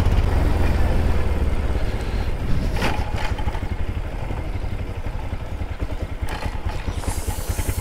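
Motorcycle engine running at low revs with a steady low pulsing beat that slowly gets quieter, with two brief knocks about three and six seconds in.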